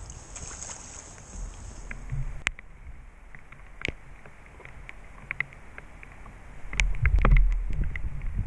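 A fishing rod and reel being worked as a hooked fish is played on a bent rod: scattered clicks and knocks from the reel and tackle. A louder low rumble swells about seven seconds in.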